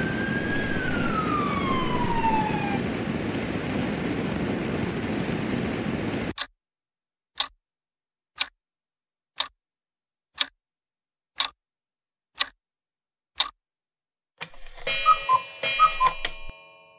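Cartoon quiz sound effects. A steady rushing noise with a whistling tone that slides down in pitch cuts off sharply about six seconds in. Then a countdown clock ticks once a second, and near the end a short bright chime of several notes marks the correct answer.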